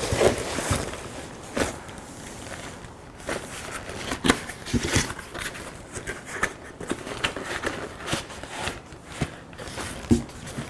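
Foam packing peanuts and cardboard being handled: irregular rustling and crackling with light knocks as a small cardboard box is pulled from the peanuts and opened.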